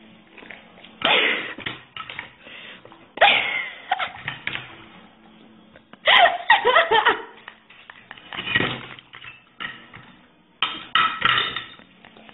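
People laughing in about five short bursts, with quieter stretches between.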